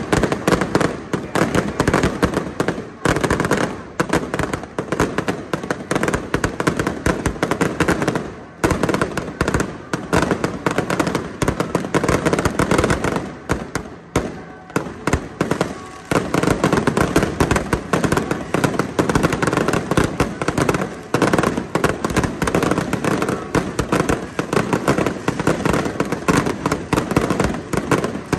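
Aerial fireworks going off in a dense barrage: rapid, overlapping bangs and crackling from bursting shells, with brief lulls about 4, 8 and 14 seconds in.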